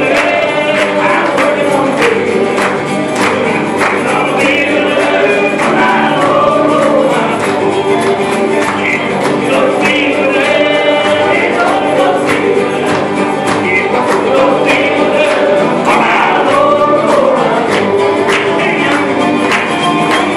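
A group singing a gospel song together, accompanied by strummed acoustic guitars keeping a steady beat.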